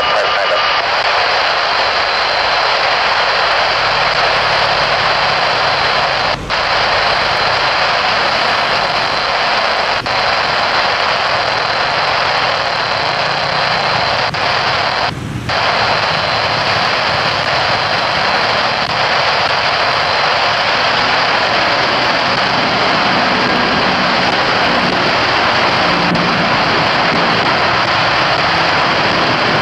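Jet airliner engines running loud and steady as a large passenger plane passes close by the runway, a continuous noise with a faint high whine. It dips briefly twice, about six and fifteen seconds in.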